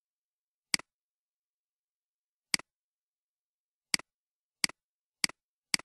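Six sharp computer mouse button clicks, irregularly spaced and quickening toward the end. Each is a press and a release heard as a quick double tick.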